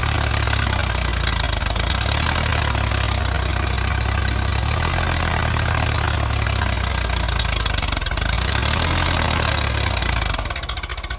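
Swaraj 855 FE tractor's three-cylinder diesel engine running steadily under load, pulling a fully loaded sand trolley through deep sand, then easing off a little before the end.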